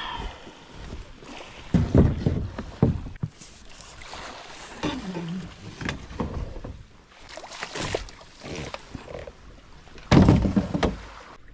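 Luggage being loaded onto a plywood deck: irregular thuds and knocks as plastic storage boxes and bags are set down, with scraping and rustling between. The loudest knock comes near the end.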